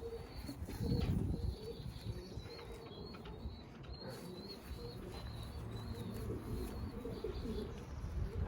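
Domestic racing pigeons cooing, low and wavering, with a faint high chirping behind them.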